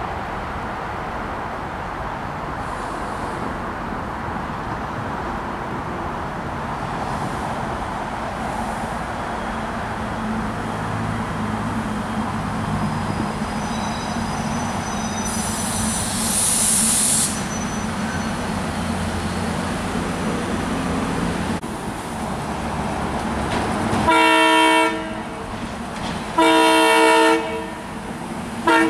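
An approaching train rumbles, growing louder, then about 24 seconds in its multi-chime air horn sounds two long blasts and the start of a short one: the grade-crossing signal.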